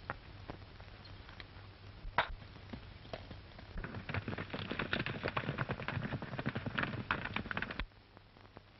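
Horse hooves galloping on hard ground: a dense, rapid clatter from about four seconds in that cuts off abruptly near the end. A few sharp single knocks come before it, over a steady low hum.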